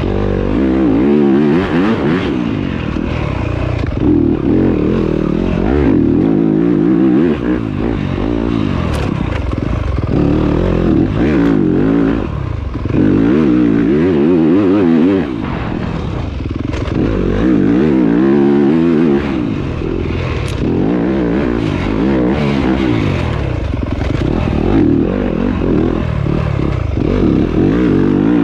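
Yamaha YZ250FX dirt bike's single-cylinder four-stroke engine ridden hard on a hot lap, revving up and dropping back again and again as the bike accelerates and slows, with a few sharp clicks and knocks.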